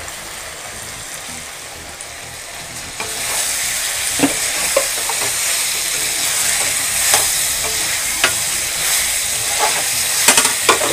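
Chicken pieces with ginger-garlic paste, charred tomatoes and green chillies sizzling in oil in a kadhai, growing louder from about three seconds in as they are stirred. A metal slotted spoon scrapes and knocks against the pan several times.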